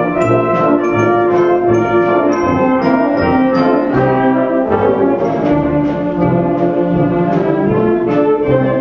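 A band playing live, brass instruments to the fore, with sustained chords over a steady beat of low notes.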